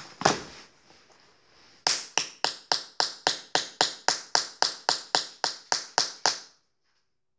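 A run of about sixteen quick, evenly spaced taps on a handheld phone's screen, roughly four a second, stopping abruptly after a few seconds, with a single tap just before the run.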